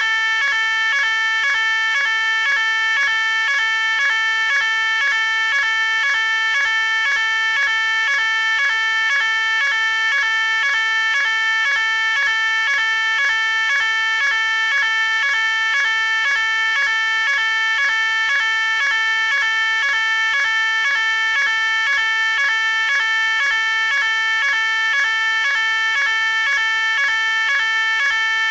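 Electronic fire alarm sounding continuously: a loud, piercing tone that pulses in a fast, even repeating pattern without let-up.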